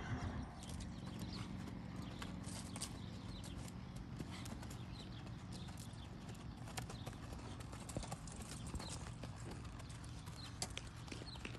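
A ridden mare's hooves clip-clopping on a packed dirt and gravel drive, a steady run of light, sharp hoofbeats as she walks along.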